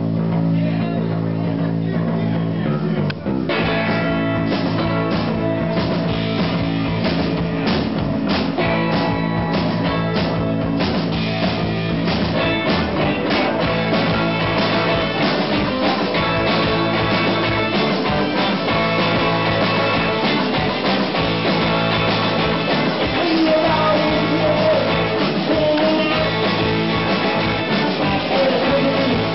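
Live rock band playing: electric guitars and bass ring out on held notes, then the drums come in about three seconds in and the full band plays on.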